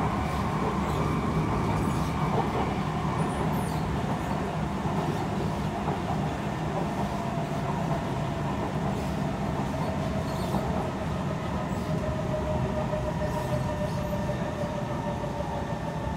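Interior running noise of a Kawasaki C151 metro train cruising on elevated track: a steady rumble of wheels on rail under a faint electric whine from the traction motors. The noise grows slightly quieter toward the end.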